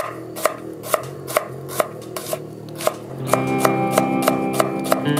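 A broad kitchen knife slicing shallots on a thick wooden chopping block, about two crisp knocks of the blade on the wood each second and a little faster later. Background music comes in about three seconds in.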